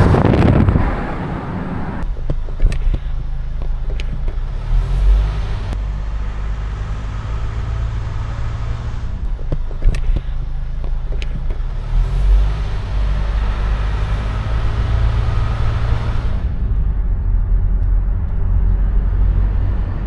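Strong wind buffeting the microphone of an action camera on a moving car, loud for the first second or two, too strong for the camera's wind-noise reduction to remove. It gives way to a steady low rumble of the car driving, with a few short clicks.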